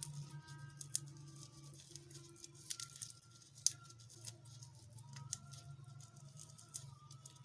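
Soft background music under scattered sharp clicks and crackles of mantis shrimp shell being snipped and peeled apart by hand.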